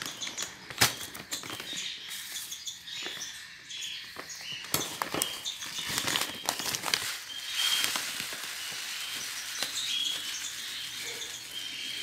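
Dry feed pellets trickling and rattling into a small plastic measuring scoop, with scattered clicks and rustles of the feed bag being handled. Short high bird chirps come in now and then.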